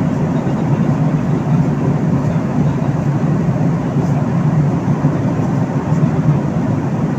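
Steady, deep, even drone of an airliner in flight, heard from inside the cabin: engine and airflow noise with a hiss above it.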